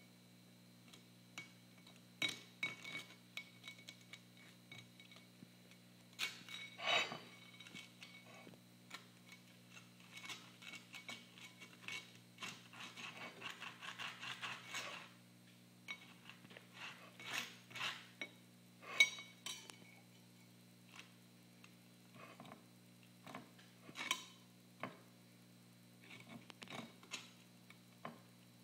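Table knife scraping butter across a slice of bread and clinking against the plate, in scattered taps and scrapes, with a longer run of scraping about halfway through.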